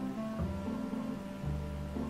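Background instrumental music with sustained notes over a bass line that changes note about every second.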